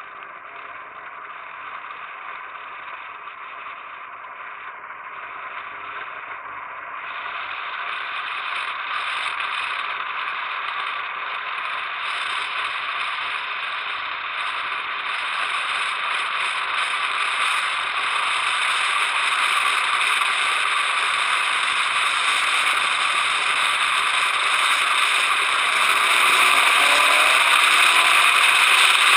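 Wind and road noise of a turbocharged 1993 Ford Probe pulling hard downhill at 13.8 psi of boost: a steady rushing hiss that keeps getting louder and brighter as the car gains speed.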